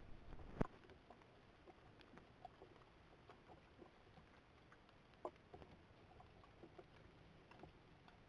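Near silence, with faint scattered ticks and rustles and a sharper click about half a second in, then another around five seconds in, from a wild boar moving beside a steel box trap.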